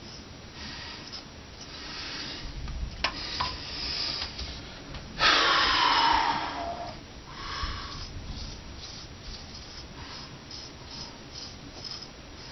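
Straight razor scraping through long beard stubble in short rasping strokes. A loud breath through the nose comes about five seconds in.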